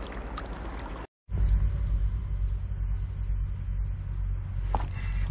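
Kayak paddle wash and water hiss for about a second, cut off abruptly, then a loud, uneven low rumble of wind on the microphone. A short light metallic clatter comes near the end.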